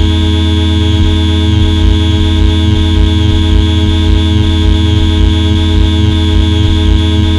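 Electronic noise soundtrack: a loud, dense drone of many steady buzzing tones over a heavy low hum, with the low end throbbing in a regular pulse about twice a second.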